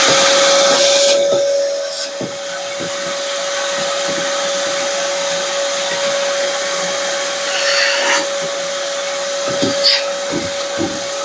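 An electric motor running at a steady high whine, with a few light knocks and rattles near the end.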